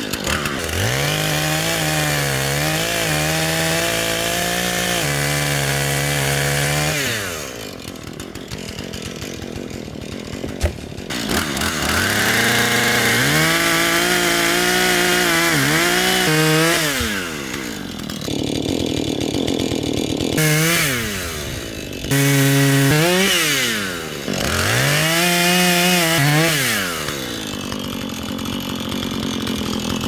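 Husqvarna two-stroke chainsaw cutting through a fallen branch in about five bursts of full throttle. The longest burst comes first and three short ones come near the end, with the saw dropping back to lower revs between cuts.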